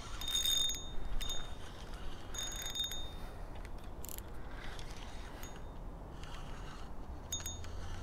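Spinning fishing reel whirring in short high-pitched bursts, three in the first three seconds and one more near the end, over low wind rumble.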